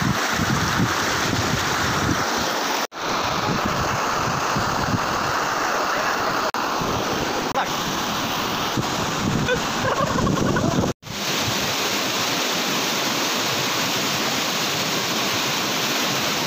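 Fast, muddy stream rushing over boulders, a loud steady wash of water heard close. The sound cuts out abruptly for an instant twice, about three and eleven seconds in.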